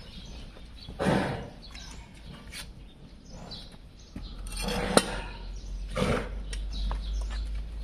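A mallet striking a long hoof chisel to cut an overgrown donkey hoof resting on a metal-topped stand: a few separate sharp knocks, the sharpest about five seconds in.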